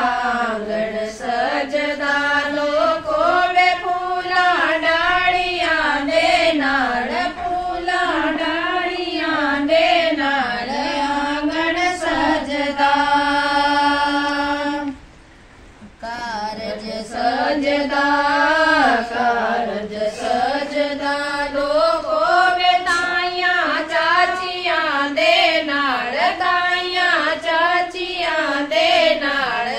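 A group of women singing a traditional song together without instruments, their voices following one melody line. Near the middle they hold a long steady note, break off for about a second, then carry on singing.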